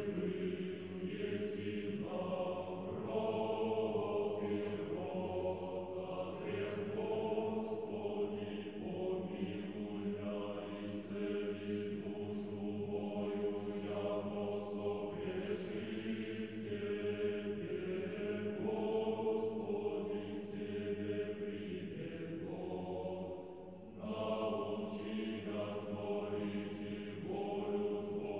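Choir chanting in slow, sustained phrases over a steady held low note, with a short break between phrases about three-quarters of the way through.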